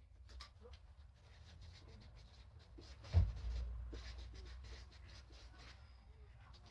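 Faint rustling and small clicks from items being handled and unpacked, with one louder thump about three seconds in.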